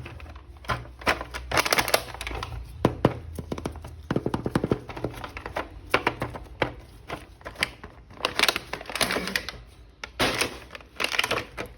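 Hands unpacking a plastic action figure: many irregular clicks and taps of plastic, with stretches of packaging rustle.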